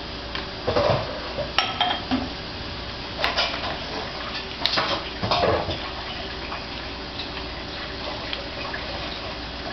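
Several short knocks and clatters, grouped in the first half, over a steady background hiss.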